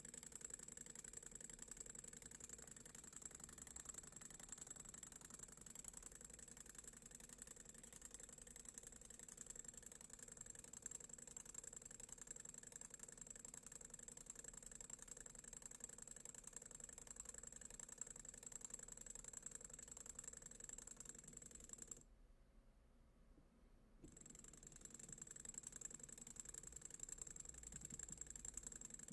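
Homemade free-piston Stirling engine, a clear tube heated by a small flame, running with a fast, steady rattle of its piston inside the tube. The sound drops away for about two seconds near the end, then comes back.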